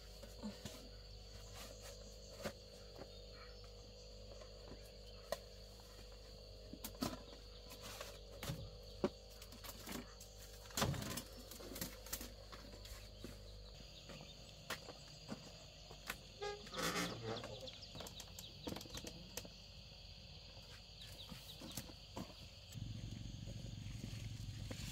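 Outdoor rural ambience: scattered knocks and clicks over a steady hum, with a louder low hum coming in near the end.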